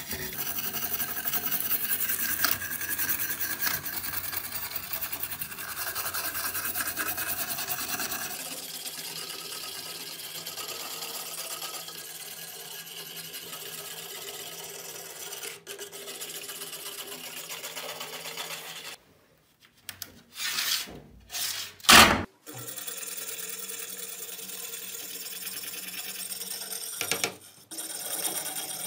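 A small wire brush scrubbing a rusty steel cleaver blade under a wet white powder: a steady scratchy rasping, louder for the first third and then softer. About two-thirds of the way in, the sound breaks off briefly, then a few short, much louder scrapes follow.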